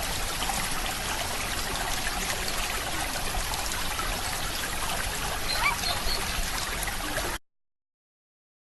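Small stream trickling steadily, with a brief louder sound near six seconds in; it cuts off abruptly about seven and a half seconds in.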